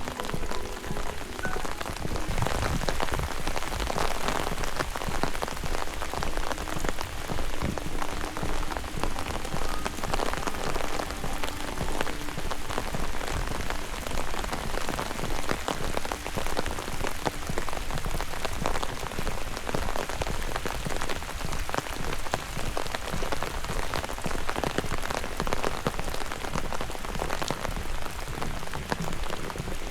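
Steady rain falling, a dense patter of drops hitting surfaces.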